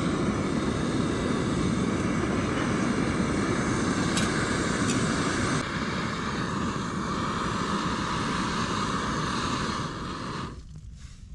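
BRS titanium gas canister stove burning at full flame, a steady loud roar that cuts off suddenly near the end as the gas is shut off.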